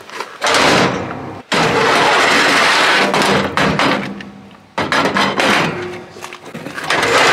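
Aluminium loading ramps being pulled out of their storage slot under an Ifor Williams flatbed trailer's deck. The metal scrapes and rattles in several long pulls with short breaks between them.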